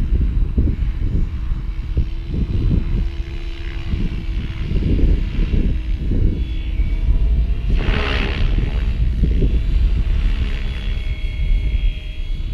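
GAUI X7 radio-controlled helicopter flying high overhead: a faint steady motor and rotor whine under heavy wind buffeting on the microphone, with a brief rushing burst about eight seconds in.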